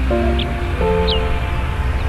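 Background music: held chords over a strong bass that change twice, with a few short high chirps above.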